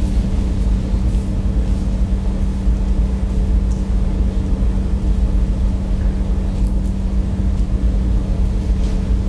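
Steady low hum and rumble with a constant low tone, unchanging throughout, with a few faint ticks on top; no speech.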